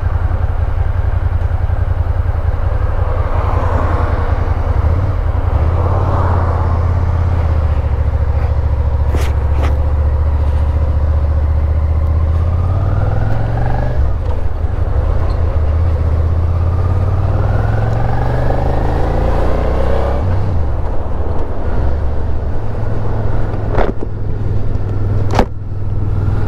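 Suzuki Gladius 650's V-twin engine riding through town, heard from the rider's seat. It rises in pitch twice as it accelerates through the gears and drops back at each shift, with a few sharp clicks along the way.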